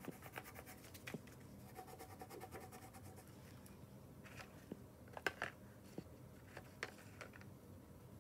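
Faint scratching of a crayon drawing on paper, with a quick run of light strokes at first. A few sharp light clicks and taps follow in the middle as small items are handled on a wooden tabletop.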